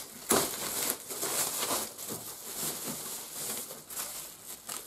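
Thin plastic packaging bag crinkling and rustling as it is pulled open and worked off a boxed unit by hand, with a sharp loud rustle about a third of a second in.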